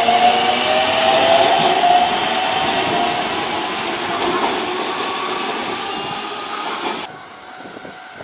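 Aichi Loop Railway 2000 series electric multiple unit pulling away and accelerating: its motor whine climbs in pitch over the rumble of wheels on rail, fading as the train draws off. The sound drops away abruptly about seven seconds in.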